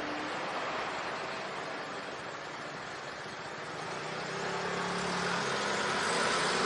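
Street traffic noise, growing louder about four seconds in as a motor vehicle's low engine hum comes in close.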